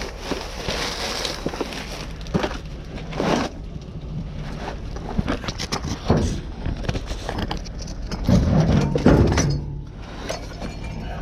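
Irregular clattering and knocking of hard objects being handled and shifted about, with a louder, heavier stretch of rattling about eight seconds in.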